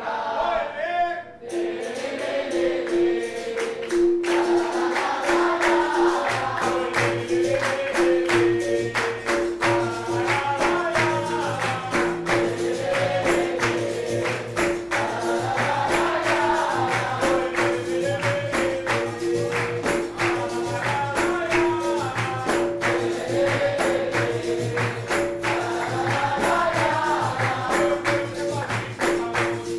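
Capoeira music: a pandeiro (tambourine) rhythm under a steadily repeating note, with group singing over it. A deeper beat joins about six seconds in.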